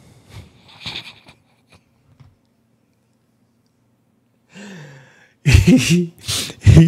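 A man's voice: a faint sigh-like breath, then loud wordless vocal outbursts from about two-thirds of the way in.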